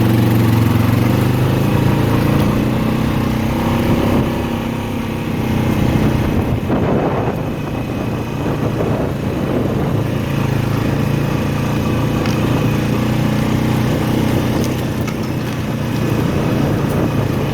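Four-wheeler (ATV) engine running steadily as it is ridden along a forest trail.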